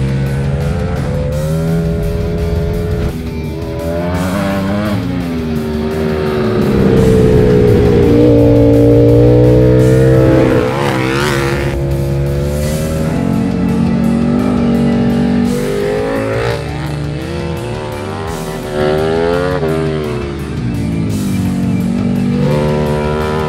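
Ducati Panigale V4's V4 engine through a Termignoni 4USCITE four-outlet exhaust, revving up and down through the gears at speed. The pitch climbs and falls repeatedly and is loudest about seven to ten seconds in.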